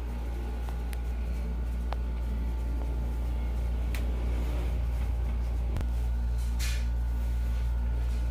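Steady low mechanical hum of room tone, with a few faint clicks and a short rustle about six and a half seconds in.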